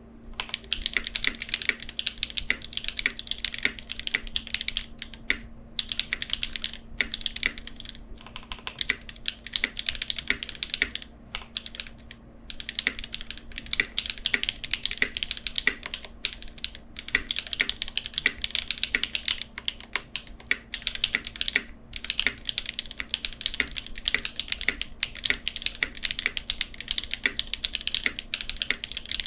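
Fast, continuous typing on a Cycle 8 mechanical keyboard with lubed Jieum V2 switches and KKB Mixed Light keycaps, built without foam: a dense run of key clacks that thins out briefly a few times before picking up again. A faint steady hum sits underneath.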